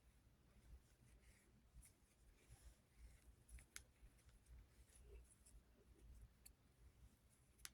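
Near silence: faint room tone with a few small scattered clicks and rustles.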